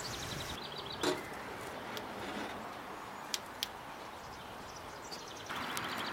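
A metal clank about a second in as the samovar's firebox is closed, then two light metallic ticks a little past three seconds as the chimney piece is set on top, over an outdoor background with a fast high trill in the first second. About five and a half seconds in, a louder steady hiss sets in.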